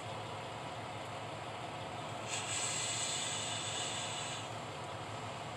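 Vape pen hissing for about two seconds as it is drawn on, a little past halfway through, over a steady low background hum.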